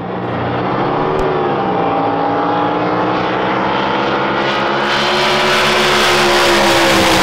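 A drag boat's racing engine warming up in the pits, running at a steady speed with a slightly wavering pitch. It fades in over the first second.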